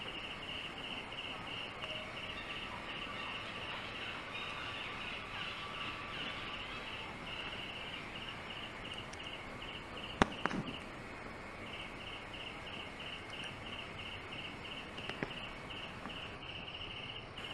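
An insect chirping in a steady train of short high pulses, about four a second, pausing for about two seconds midway and then starting again. A single sharp click about ten seconds in is the loudest sound.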